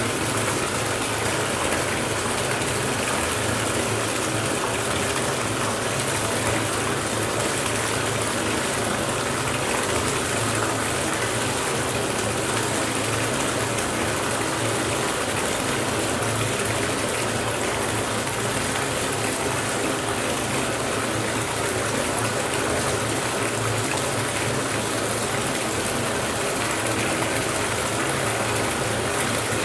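Bathtub filling from the tap: water pouring steadily into the tub with a constant, even rush.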